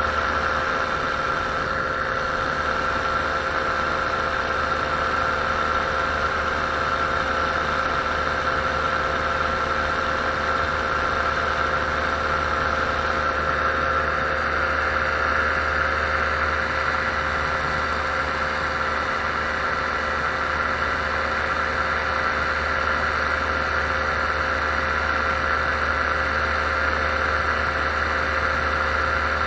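Paramotor engine and propeller running steadily in flight: an even drone with a strong, steady high tone on top, with no change in pitch or level.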